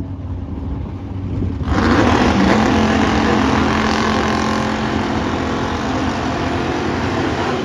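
Drag race car engine rumbling low, then about two seconds in it opens up to full throttle, loud and steady at high revs for several seconds before it starts to fade.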